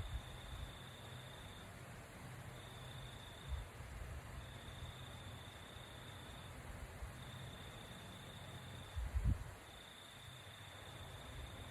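An insect trilling on one steady high pitch in stretches of one to three seconds with short gaps, over a faint steady hiss. Two short low thumps break in, the louder about nine seconds in.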